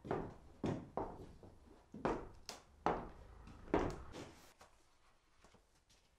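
Slow footsteps on wooden floorboards, each a dull thud with a short room echo, about one a second; they stop a little past halfway.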